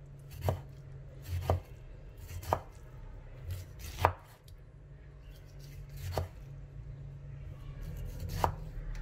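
Chef's knife slicing salted vegetable on a wooden chopping board: about six separate cuts, each ending in a knock of the blade on the board, spaced a second or two apart.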